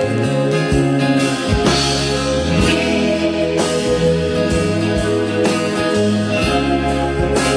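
Recorded music with guitar and a regular beat, played through Klipsch RF800 floor-standing loudspeakers.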